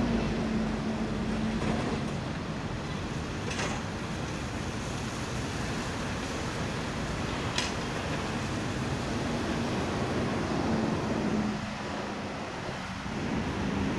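Steady city street traffic noise, a continuous rush of passing vehicles, with two brief clicks partway through.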